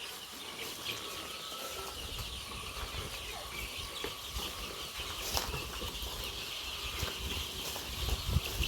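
A flock of young chickens peeping together in a dense chorus, with wings flapping and rustling.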